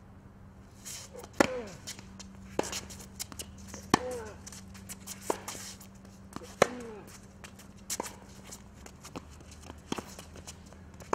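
Tennis rally on a hard court: sharp pops of racket strings striking the ball, the loudest about every two and a half seconds, with fainter hits and bounces between them and the scuffing of players' shoes on the court.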